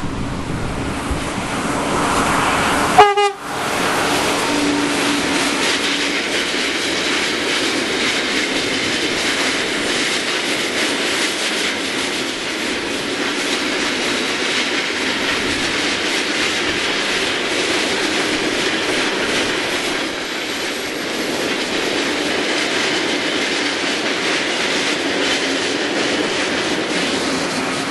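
A long freight train of loaded hopper wagons rolling past close by, hauled by an ÖBB Taurus electric locomotive: a sudden loud blast about three seconds in as the locomotive goes by, then the steady rumble and clatter of the wagons' wheels on the rails. A second Taurus locomotive passes at the rear near the end.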